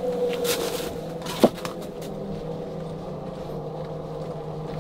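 A steady mechanical hum with a low tone and a higher one, with brief rustling in the first second and one sharp knock about one and a half seconds in.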